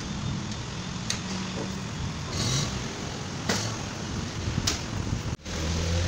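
A few sharp clicks and a short scrape of a front-loading washing machine's plastic panel parts being handled and fitted, over a steady low background hum; the sound cuts off abruptly near the end.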